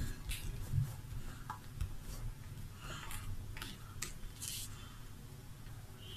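Folded paper rustling and crinkling under the fingers in scattered soft bursts, with a few light clicks, as the freshly glued piece is pressed flat on the table so the glue can set.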